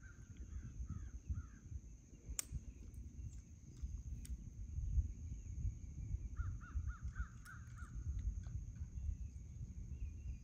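A bird calling in two quick runs of short repeated notes, one near the start and one about six seconds in, over a low rumble of wind on the microphone and a steady high-pitched hum. A single sharp click about two seconds in.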